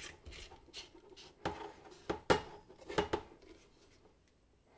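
Stainless-steel broom pole sections clicking and knocking as they are handled and screwed onto the broom head, about six sharp metallic clinks, the loudest a little over two seconds in.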